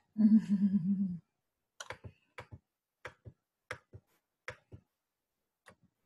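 A woman's short hummed "mmm", then a run of light clicks, mostly in pairs, about one pair every two-thirds of a second.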